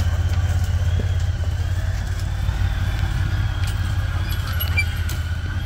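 Engine of a Honda side-by-side utility vehicle running steadily as it creeps along a dirt trail: a low, evenly pulsing engine note.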